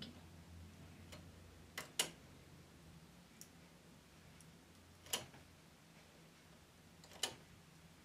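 A few faint, sharp clicks over a low steady hum: two close together about two seconds in, then single ones about five and seven seconds in. They are a latch tool and the metal needles of a knitting machine's needle bed clicking as loops are worked by hand.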